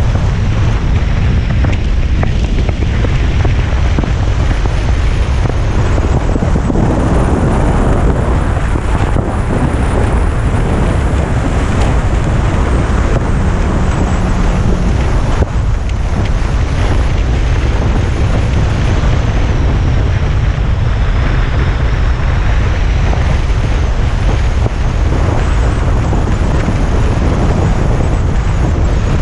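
Steady wind rumble on the camera microphone over the engine and road noise of a Yamaha FJR1300 inline-four motorcycle being ridden at speed.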